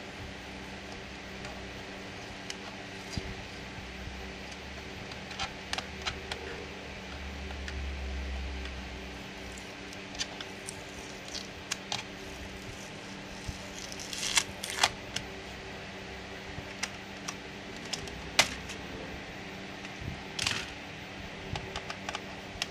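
Scattered light clicks and taps of a Lenovo G570 laptop's plastic case parts and screws being handled as it is taken apart, with a few sharper clicks in the second half, over a steady low hum.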